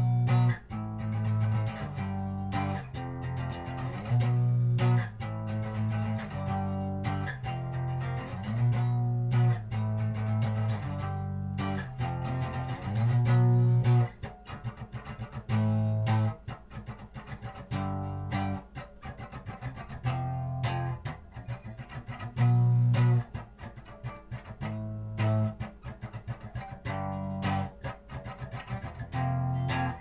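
Instrumental guitar music: plucked guitar over a bass guitar line, with the bass notes becoming sparser about halfway through.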